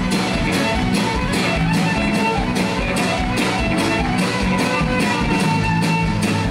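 Folk-rock band playing a fast fiddle reel live: fiddle with acoustic and electric guitars over a steady drum beat.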